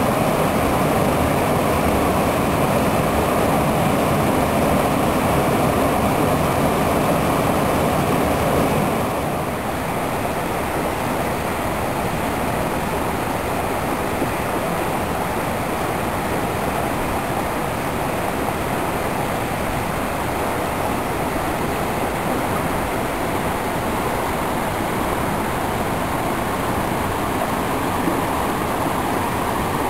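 Stream water rushing and babbling steadily. About nine seconds in it becomes a little quieter and thinner, then runs on evenly.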